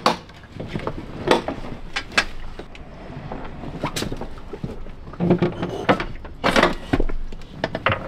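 Irregular knocks, clunks and rustling as an outboard motor hanging from a lifting strap is wrestled off the transom of an inflatable dinghy, with about five sharp knocks and a dull thud a little past the middle.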